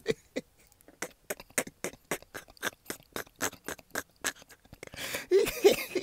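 Rapid irregular clicking, about four sharp clicks a second, with a brief voice sound about five seconds in.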